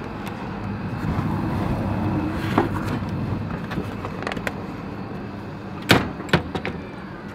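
Steady traffic-like rumble and a low hum around the vending machine while a boxed hot dog is taken from its delivery compartment, with a light knock about halfway through. Near the end come two sharp plastic clacks, the compartment's flap door snapping shut.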